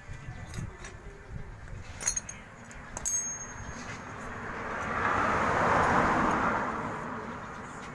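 Two sharp metallic clinks, about two and three seconds in, then a vehicle passing by, its noise swelling and fading over about four seconds.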